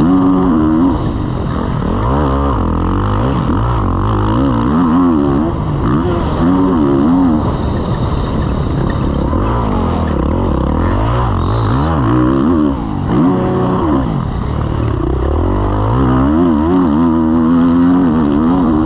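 Kawasaki KX450 motocross bike's single-cylinder four-stroke engine being ridden hard, revving up and dropping back over and over as it accelerates and shuts off through the track.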